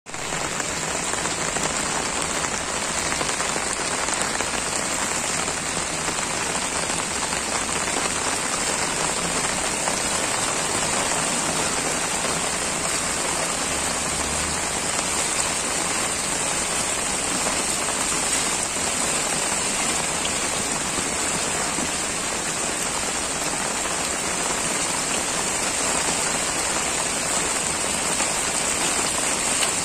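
Heavy rain pouring onto a waterlogged road, a constant even hiss of rain on standing water that neither rises nor falls.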